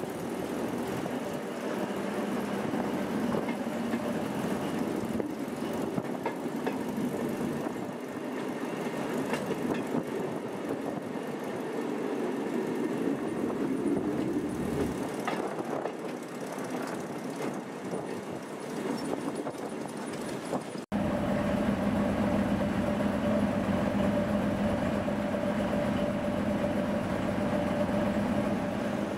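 Diesel shunting locomotives hauling a train, heard from a coach behind them as a steady engine rumble mixed with wheel and rail noise. After a sudden cut about two-thirds through, a louder, steady engine hum with a fixed drone comes from close beside a British Rail Class 03 shunter fitted with a Rolls-Royce engine.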